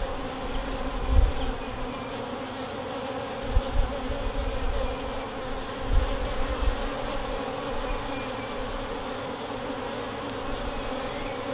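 Honeybees buzzing steadily around an open hive whose frames are being lifted and inspected. A few short low thumps come in the first half.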